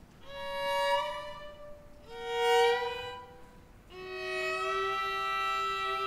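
String quartet of violins and cello playing three sustained bowed chords. Each chord swells and fades, each is lower than the one before, the second is the loudest, and the third is held steadily.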